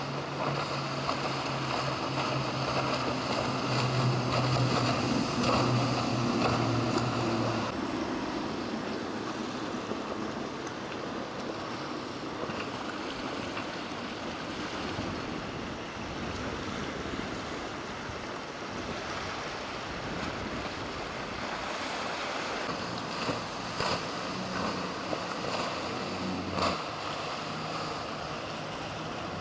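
A motorboat's engine drones steadily as it runs past, then fades after about eight seconds, leaving surf and wind rushing on the microphone. A few brief knocks come near the end as another engine drone rises.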